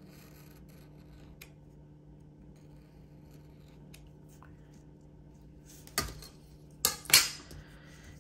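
Scissors snipping through a sticker sheet: three sharp snips in quick succession near the end, the last two loudest, over a faint steady hum.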